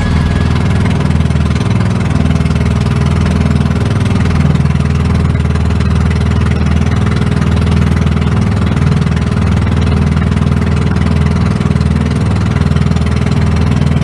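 Small fishing boat's engine running steadily while under way, a low, even sound that holds at one speed.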